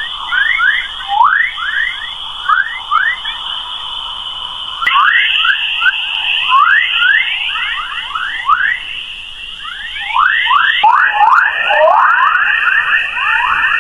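Sonified radio emissions from Earth's magnetosphere, played as audio: a dense stream of quick, bird-like chirping sweeps under a steady high tone. The tone shifts pitch about five seconds in and again near eleven seconds.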